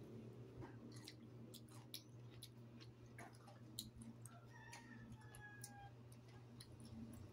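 Faint chewing of sea grapes (lato seaweed), with soft scattered clicks from the mouth over a low steady hum.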